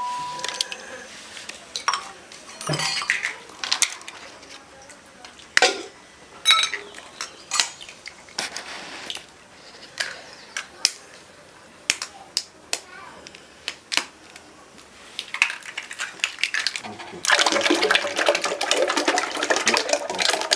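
Scattered sharp clinks and taps of eggs and utensils against metal cups and pots. About three seconds before the end, beaten egg is poured from a bowl into a large aluminium pot, a continuous loud splashing and sloshing.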